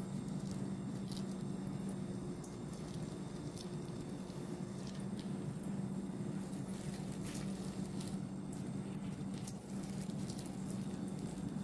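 A plastic bag of mayonnaise and ketchup sauce being squeezed out through a cut corner: faint crinkles, clicks and squishes over a steady low hum.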